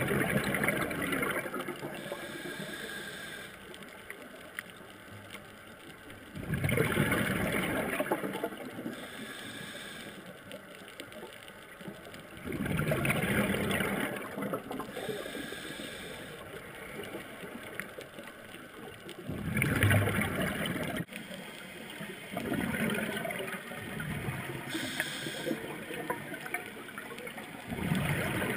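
Scuba regulator breathing heard underwater: a gurgling rush of exhaled bubbles comes about every six to seven seconds, five times, each lasting a second or two, with a quieter hiss between.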